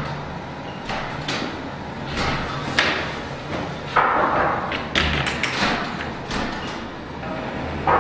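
A series of sharp knocks and clicks with short scrapes, the loudest about four seconds in, from a toilet-stall door and its latch being handled, over a low steady hum.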